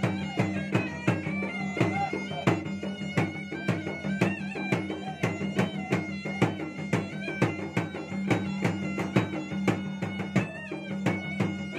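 Traditional Makassar gendang drumming: two double-headed barrel drums beaten in a quick, dense rhythm, under a wind instrument playing a high, ornamented melody over a steady low drone.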